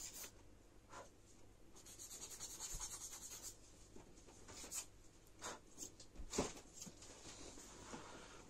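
Faint scratching on paper: a run of quick, even strokes for about a second and a half, then a few light clicks and taps, the sharpest a little past six seconds in.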